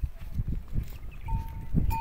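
Herd of goats moving about on sand, with low muffled thuds about every half second. A steady bell tone comes in about two-thirds of the way through.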